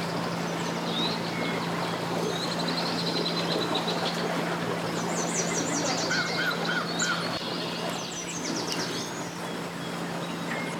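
Small birds chirping and trilling in quick runs of short high notes, over a steady low hum and a constant rush of wind and water.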